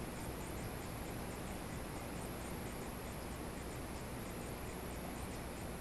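Faint, steady riverbank ambience: a low even hiss with a thin, high-pitched chirr that pulses regularly throughout, typical of insects in summer grass.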